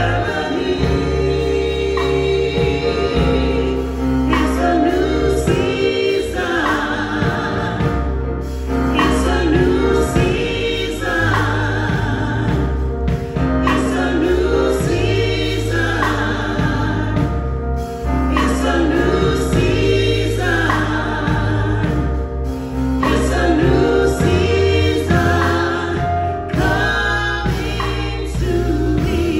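Gospel choir singing in harmony over sustained bass notes that change about every two seconds.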